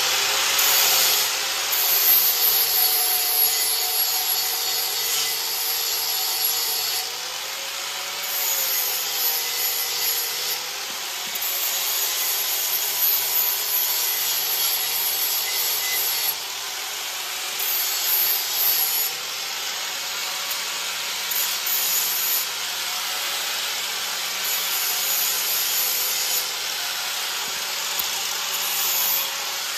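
Electric angle grinder grinding steel: a steady gritty hiss over the motor's hum, its pitch sagging and recovering as the disc is pressed onto the metal. The steel is being ground clean to bare metal for MIG welding.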